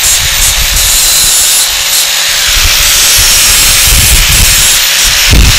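Handheld grinder running steadily on a piece of steel bracket stock, deburring its sharp cut edges: a constant motor whine under a loud grinding hiss, with a few low knocks near the end.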